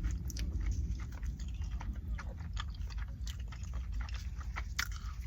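A person chewing a mouthful of bacon and egg McMuffin, a string of small irregular mouth clicks and smacks.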